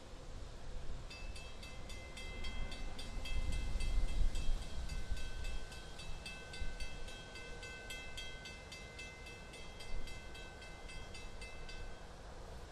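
A railroad warning bell ringing with rapid, evenly spaced strikes. It starts about a second in and stops near the end, over a low rumble that swells for a couple of seconds early in the ringing.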